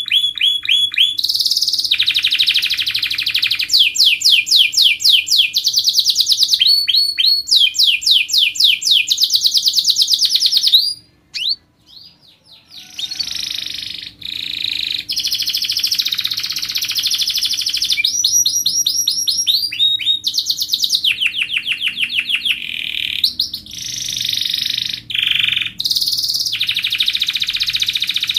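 Domestic canary singing a long song of tight rolls: fast trills of rapidly repeated notes alternating with buzzier stretches. It breaks off for about two seconds near the middle, then resumes.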